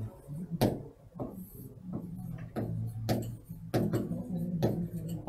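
Marker pen writing on a whiteboard: a string of short taps and scrapes, about two a second, over a faint low hum.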